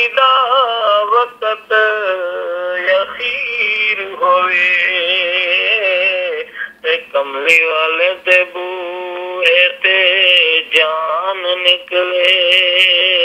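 A Punjabi naat, an Islamic devotional song in praise of the Prophet Muhammad, sung by a single voice in long, ornamented melodic lines with short breaths between phrases.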